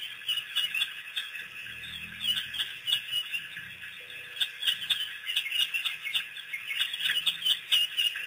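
A pack of African wild dogs making their high-pitched twittering calls, many short irregular chirps and squeaks overlapping, as the excited pack mills together.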